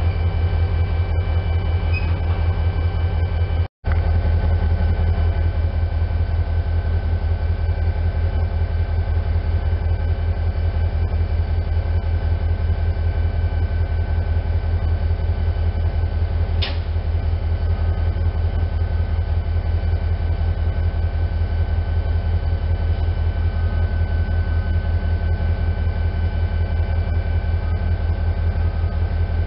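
EMD SD40-2W diesel-electric locomotive's 16-cylinder 645 engine idling steadily close by: a loud, even low rumble with a rapid pulse and a faint steady high whine. The sound breaks off for an instant about four seconds in.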